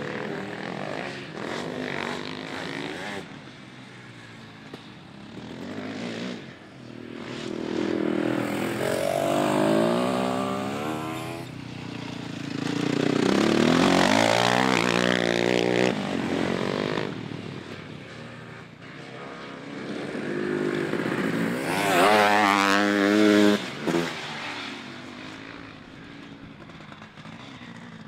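Sidecar motocross outfits racing past one after another, their engines revving up and falling away as they accelerate and corner on the dirt track. The loudest pass, a rising rev, comes about three quarters of the way through and cuts off sharply.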